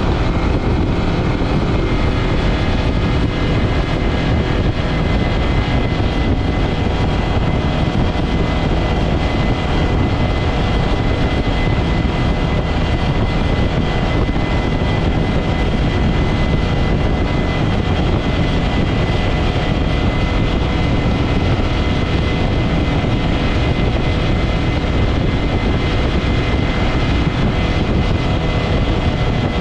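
Yamaha F225 four-stroke V6 outboard motor running steadily at full cruising speed, around 5500 rpm with the boat doing about 48 mph. A thin, steady high whine runs through the engine sound.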